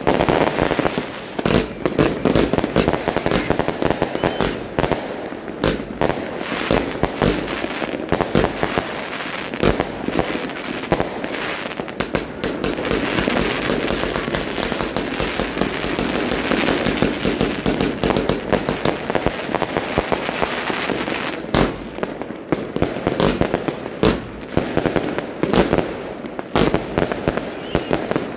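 A firework battery fires shell after shell in a long rapid barrage, a dense run of launch thumps and bursting bangs. For a stretch in the middle the shots run together into a thicker, almost continuous crackle.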